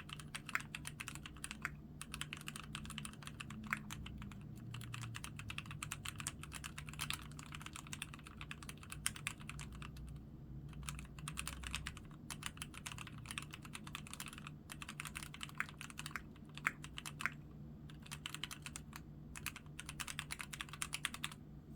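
Keychron Q3 aluminium-cased mechanical keyboard being typed on in a fast, continuous run of key clacks, broken by a few short pauses.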